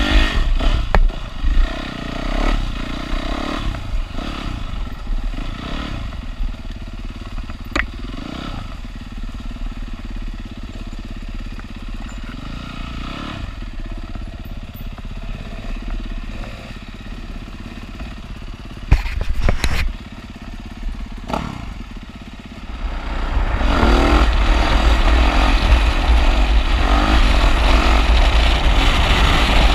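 Yamaha WR450F four-stroke single-cylinder dirt bike engine on a woodland trail, revving up and down with a few sharp knocks from the bike over bumps. About two thirds of the way through it turns much louder and steadier, with heavy wind rushing over the bike-mounted camera at road speed.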